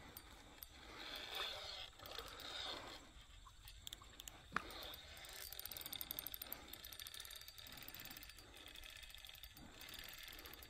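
Fishing reel being wound as a hooked carp is played in: a faint, fast ticking that comes in spells, with one sharp click about halfway through.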